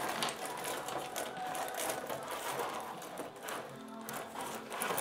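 Tabletop rod hockey game in play: the metal control rods sliding and spinning, with the plastic players and puck clattering in a rapid run of clicks and rattles.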